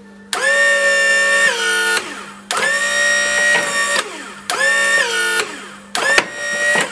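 Electric hydraulic pump of a Gardner 2UC gearbox's electro-hydraulic gear-change system, switched on and off four times as the gear selector is moved. Each run is a steady whine of a second or two that drops in pitch partway through, over a constant low hum.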